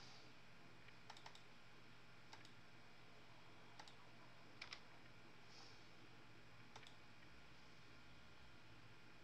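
Faint, scattered clicks of a computer keyboard and mouse being used, about seven in all, the loudest a quick pair about halfway through, over a quiet steady room hum.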